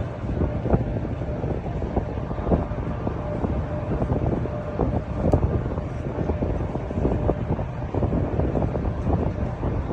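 Wind buffeting the microphone in uneven gusts over a steady low rumble, with a faint steady hum.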